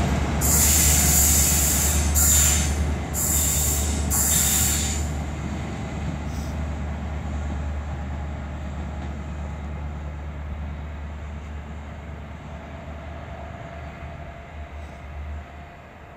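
Cross Country HST departing, its rear Class 43 power car's diesel engine running with a low drone as the coaches roll past. Four short bursts of high-pitched wheel screech come in the first five seconds, then the train's sound fades steadily away.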